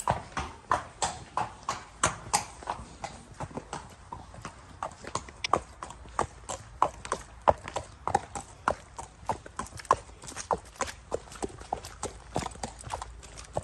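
Thoroughbred mare's hooves clip-clopping at a walk on hard, wet concrete, a steady run of sharp strikes about three a second.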